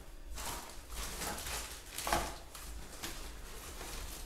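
Footsteps on a hard floor, then the rustle of a large woven plastic sack being opened and rummaged through, with one louder knock about two seconds in.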